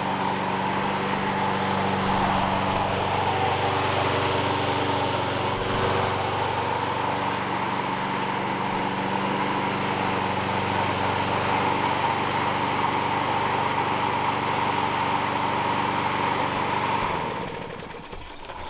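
Toro Super Recycler's Briggs & Stratton walk-behind mower engine running steadily with its blade spinning, driving itself along pavement without cutting grass. The engine stops near the end and winds down in about a second.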